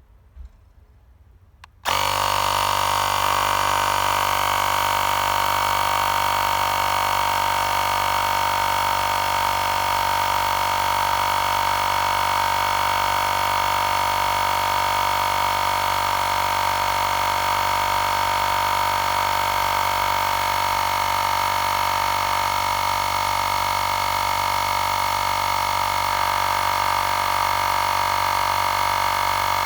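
Xiaomi Portable Electric Air Compressor 2 switching on about two seconds in and running steadily, a loud whining drone, as it pumps up a nearly flat spare tyre.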